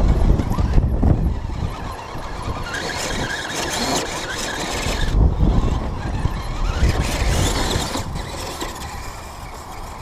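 Electric motor and gearbox of a 1/10-scale RC crawler truck whining as it climbs over rocks, the pitch rising and falling with the throttle, along with scraping and heavy thumps of the truck on stones.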